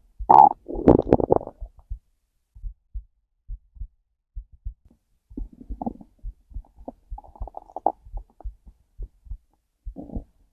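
A hungry stomach growling over a steady heartbeat. A loud gurgle comes about half a second in, then softer gurgles in the middle and near the end, while the heartbeat keeps up a run of short, low, evenly spaced thumps.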